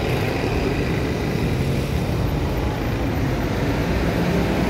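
Steady roadside traffic noise from passing vehicles, with a low steady hum joining near the end.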